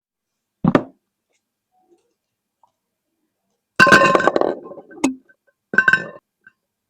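Hard plastic gachapon capsules knocking and clinking together, with short ringing clatter and sharp clicks. There is one knock about a second in, a longer clatter around four seconds, a sharp click at five seconds and another clatter near six seconds.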